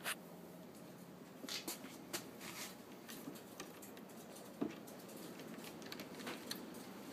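Faint handling noise: scattered light taps and rubs as fingers work a PVC tube end cap with its bolt and black plastic camera mount.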